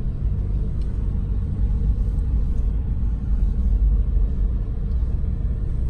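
A car in motion: a steady low rumble of road and engine noise.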